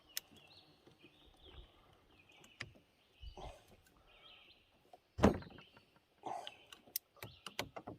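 Scattered small clicks and knocks from handling a Navy Arms reproduction 1851 Colt Navy cap-and-ball revolver while a round ball is seated in a chamber, with one louder thump about five seconds in and a run of quicker knocks near the end.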